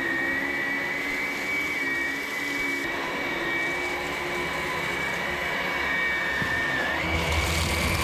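Two cordless brushless stick vacuums, a Ryobi ONE+ HP and a HART, running together as they are pushed over carpet. Their steady high whine dips slightly in pitch now and then, and a lower rumble comes in near the end.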